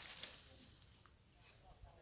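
Near silence, with a brief soft noise right at the start.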